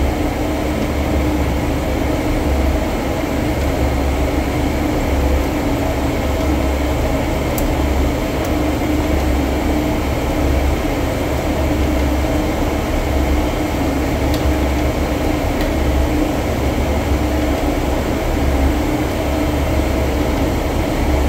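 Loud, steady drone of boiler-room machinery running, with a steady hum and a low rumble that swells and fades. A few faint clicks of pliers and a wrench working on the brass fittings.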